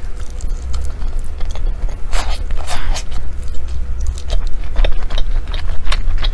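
Close-miked biting and chewing of a sticky meat-filled glutinous rice dumpling (zongzi), with many short mouth clicks.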